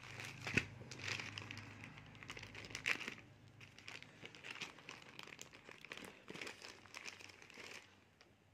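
Plastic courier mailer bag crinkling and rustling as it is handled and opened, with sharper crackles about half a second and three seconds in.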